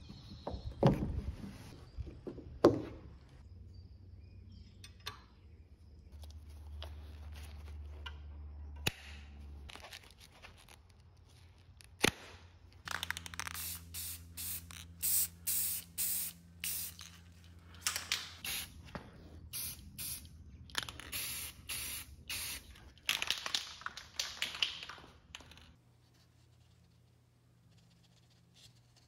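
Spraying in many short hissing bursts, one after another through the second half, after a few sharp knocks and handling noises in the first twelve seconds.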